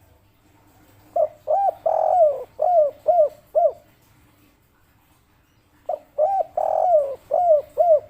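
Spotted dove (tekukur) of the local 'kuk 3' song type cooing: two phrases, starting about a second in and about six seconds in. Each phrase is a run of short rounded coos with one longer, drawn-out coo near its start.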